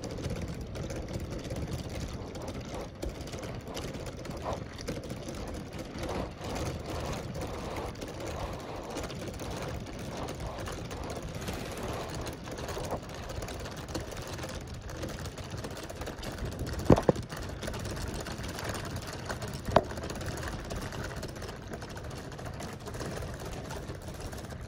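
Steady mechanical whirring and rattling of a toy's turning gears, with two sharp knocks about three seconds apart two-thirds of the way through.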